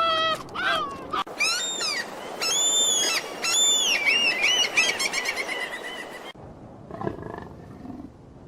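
An animal's high-pitched calls, repeated in quick succession, some sliding up or down in pitch. They cut off abruptly about six seconds in, leaving only a faint low sound.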